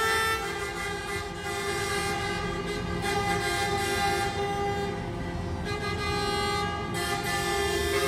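Many coach horns honking together, sounded in protest: overlapping steady tones at several pitches held throughout, over the rumble of road traffic.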